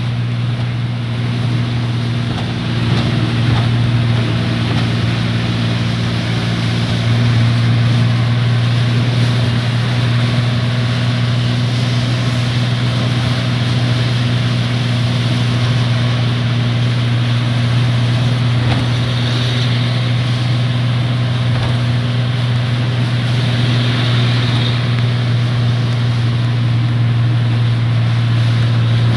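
Heavy rain and strong storm wind as a steady rushing noise, with a constant low hum running underneath.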